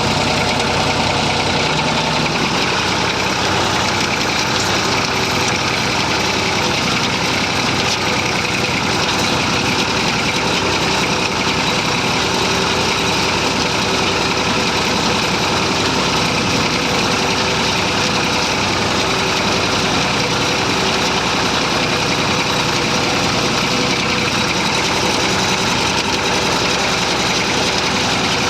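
Massey Ferguson 35 tractor engine running steadily at an even speed.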